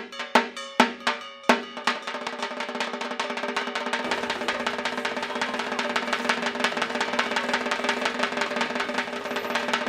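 Drumming with a clanging metal beat: a few loud separate strokes, then from about two seconds in a fast, steady run of beats over a ringing tone.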